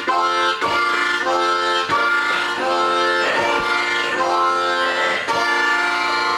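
Solo harmonica playing a train imitation, with long held chords broken by short gaps every second or so and wavering pitch bends in the middle.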